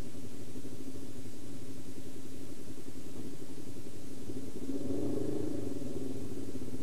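Car engine idling with a steady low rumble that swells briefly about five seconds in.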